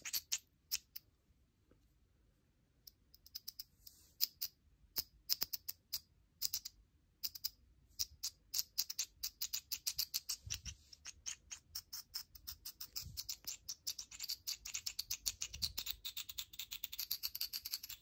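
Voopoo Drag Nano 2 pod vape's coil crackling and popping: scattered pops at first, turning into a fast crackle with a sizzling hiss about halfway through. This is spitback, e-liquid spitting and popping on the coil.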